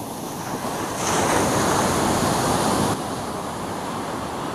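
Sea waves washing in over sand, a steady surf noise that swells about a second in and drops back suddenly about three seconds in.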